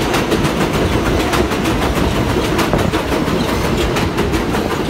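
An R160-series stainless-steel subway car passing close by on an elevated line. Its wheels rumble steadily and click irregularly over the rail joints.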